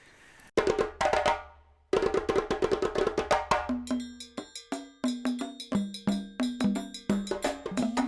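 Music with a steady beat of wooden-sounding percussion over pitched notes and a bass line, starting about half a second in after a brief hush.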